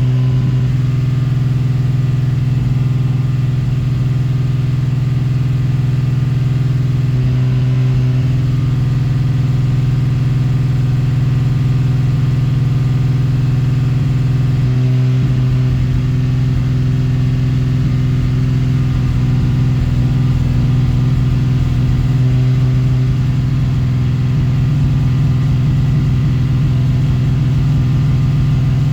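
A 2023 BMW M3's twin-turbo inline-six engine running steadily during a misfire test.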